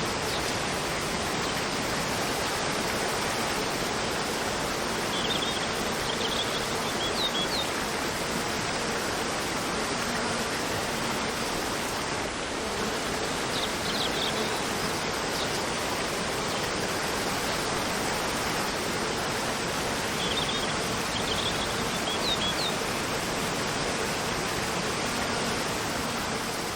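Steady rush of a cascading waterfall, with a few brief clusters of high forest-bird chirps over it, about every seven or eight seconds.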